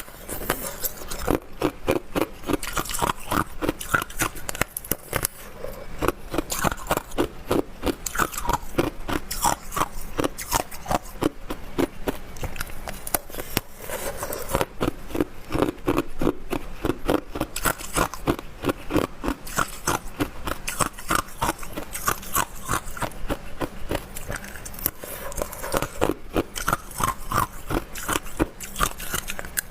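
Close-up crunching of hard ice being bitten and chewed: rapid, dense cracks several a second as the ice is ground between the teeth.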